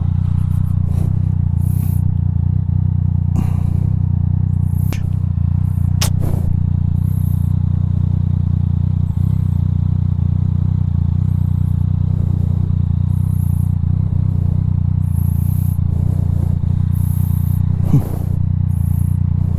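Yamaha Tracer 900 GT's three-cylinder engine idling steadily while the bike stands still. Short clicks and scrapes come from the arm-mounted action camera being handled and adjusted, most of them in the first few seconds.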